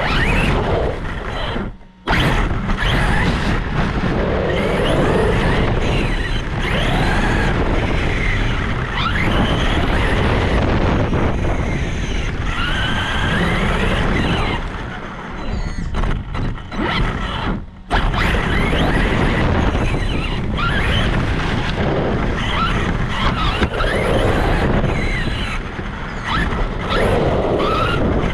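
Traxxas Sledge RC monster truck running over dry grass, heard from a camera mounted on the truck. Its brushless motor and drivetrain whine rises and falls with the throttle over steady tyre and grass noise. The sound cuts out briefly twice, about two seconds in and again about two-thirds of the way through.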